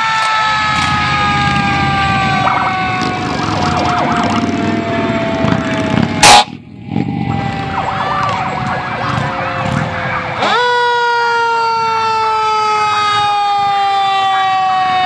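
Fire engine siren sounding with a slowly falling pitch, snapping back up about ten and a half seconds in and falling slowly again, over the rumble of the passing truck. About six seconds in there is one brief, very loud burst.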